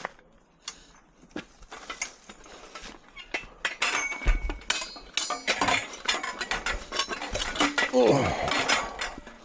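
Metal bed frame being handled and loaded for scrap: a run of clanks, knocks and clinks of metal on metal, some ringing briefly, busiest in the second half.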